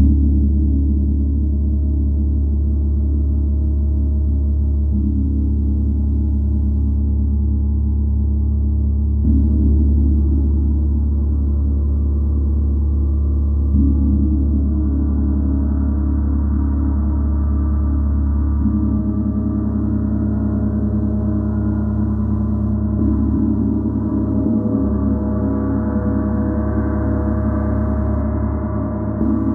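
A gong played in a slow, continuous sound-healing session: soft strikes every several seconds keep its dense, low, overlapping tones ringing without a break.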